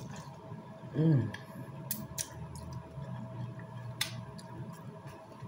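Someone chewing a mouthful of rice, vegetables and sausage, with a short falling "mmm" of enjoyment about a second in and a few sharp clicks around the second and fourth seconds.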